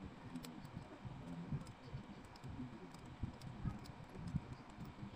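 Light, irregular clicking of an 8-speed bicycle chain and its missing link being handled by hand as the link is fitted, with low handling noise underneath.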